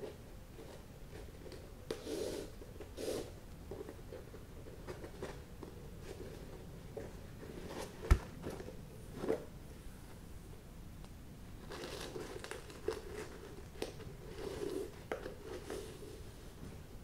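Flat shoelace being pulled through the eyelets of a Nike Dunk High sneaker, heard as soft, repeated rubbing and rustling swishes. A single sharp knock about halfway through is the loudest sound.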